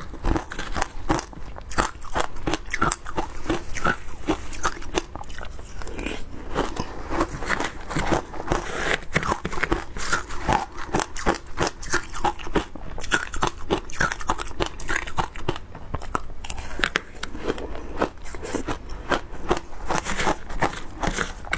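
Close-miked crunching and chewing of shaved ice, a rapid, irregular run of crisp crunches that goes on throughout.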